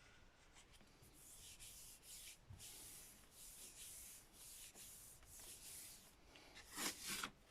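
Faint, repeated rubbing strokes on a gel printing plate, from a brayer or a hand working paint and paper over the plate, each a short swish, roughly one every two-thirds of a second, with a slightly stronger stroke near the end.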